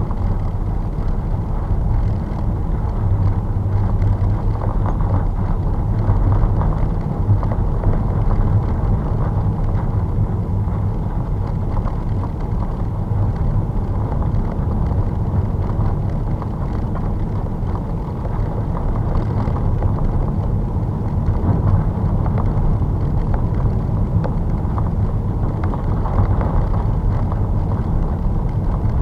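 Steady in-cabin road noise of a car driving at about 45 km/h: a low rumble of engine and tyres on a snow- and ice-covered road, heard through the dashcam's microphone.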